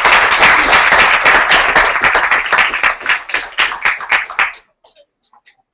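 Audience applauding; the clapping thins to a few scattered claps and stops about four and a half seconds in.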